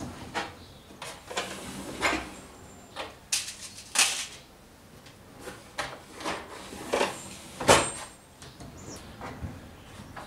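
Workbench drawer on its slides being pushed in and pulled out, with irregular knocks and clatters; the loudest knock comes a little over halfway through.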